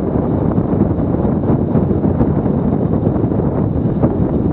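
Loud, steady wind buffeting the microphone of a camera flying under a paraglider: the rush of air from the glider's own airspeed, a dense low rumble with no breaks.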